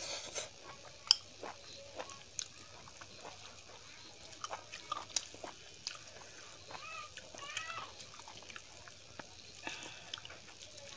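Close-miked eating sounds: wet, sticky squelches and small clicks as rice and dal palak are mixed by hand on a steel plate, with scattered mouth smacks and a few short throaty sounds a little past the middle.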